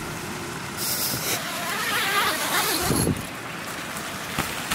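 A nylon tent door being unzipped and pulled open: a rasping, rustling noise lasting about two seconds, over a steady background hiss, with a short low thump at the very end.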